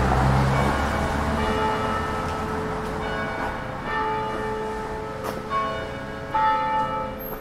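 Church bells ringing, a series of strikes about a second apart, each leaving a ringing tone. A passing car's engine fades out during the first second or so.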